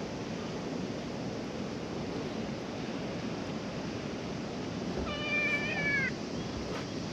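A calico cat meows once, a single call about a second long about five seconds in, dipping slightly in pitch at the end, as it walks up to the person.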